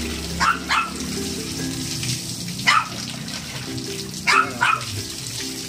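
A dog barking five times: a quick pair about half a second in, a single bark near the middle, and another quick pair a little past four seconds. Water splashes as it is poured from a plastic dipper over a wet dog.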